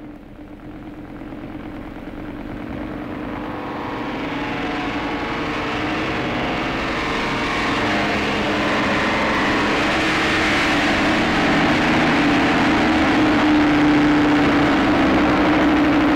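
Propeller biplane's piston engine running, growing steadily louder over the first several seconds and then holding steady.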